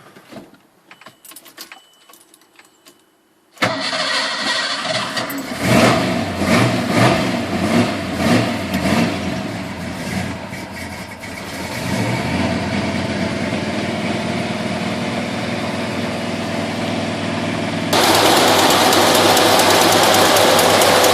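A few light clicks, then the Ford 4x4's engine starts suddenly about three and a half seconds in. It runs unevenly with several revs, then settles into a steady idle. Near the end a louder, even noise takes over abruptly.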